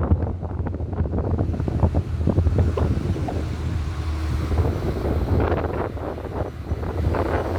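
Wind buffeting the microphone over the steady low rumble of a moving car.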